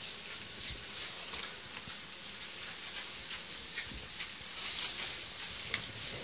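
Goats moving about in hay and straw: rustling with scattered light knocks of hooves on wooden boards.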